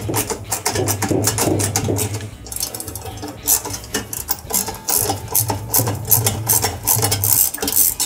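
Socket ratchet clicking in quick runs as it turns out the 13 mm bolts holding a Maytag washer's drive motor.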